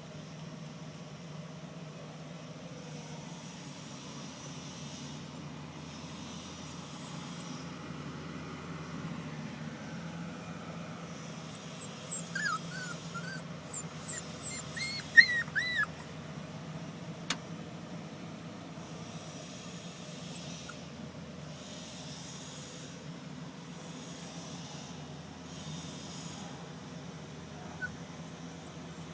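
Red-nose pit bull puppies whimpering and yipping: a cluster of short, high calls in the middle, over a steady low hum.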